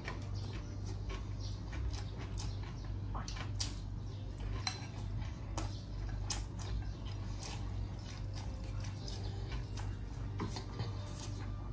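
Utensils clinking and tapping against dishes in a scattered, irregular run of small clicks, over a steady low hum.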